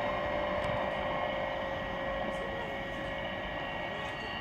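Railway platform ambience: a steady rumbling hum with a few thin, level tones, with faint voices in the background, as an electric multiple unit local train approaches from a distance.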